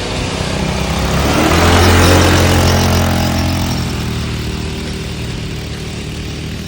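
A motor vehicle engine running, rising in level and pitch for a moment about two seconds in, then easing back to a steady hum.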